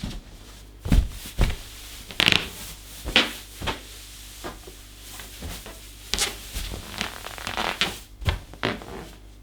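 Inflated rubber balloons being stomped on and squeezed: irregular thumps, the loudest about a second in, and squeaky rubber rubbing, with no pop.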